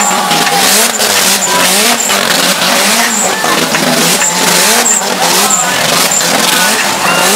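A car spinning donuts: the engine's revs rise and fall over and over while the rear tyres squeal in a continuous skid.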